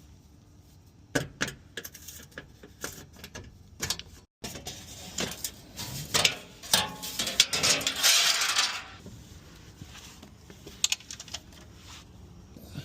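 Metal hand tools clinking and clattering as they are handled and set down, with a ratchet clicking among the knocks and a denser rattle and rustle about seven to nine seconds in.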